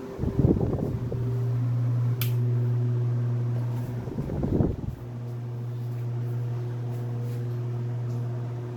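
Arno Super electric table fan running, its motor giving a steady low hum with overtones. Twice, near the start and about four and a half seconds in, the hum gives way for about a second to a noisy rattling burst, and a sharp click sounds about two seconds in.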